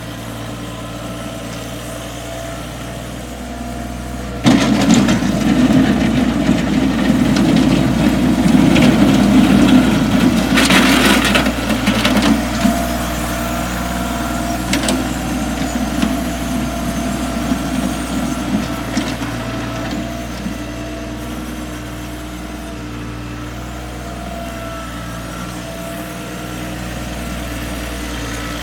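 Bobcat CT225 compact tractor's diesel engine running steadily. About four seconds in it turns suddenly louder and rougher for several seconds, then eases back to a steady run.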